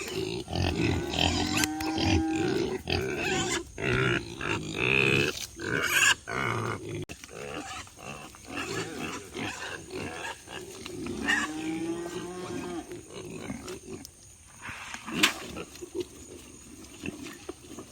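Pigs grunting and squealing, eager for feed; the calls are loudest in the first half, with pitched squeals about a second in and again around twelve seconds.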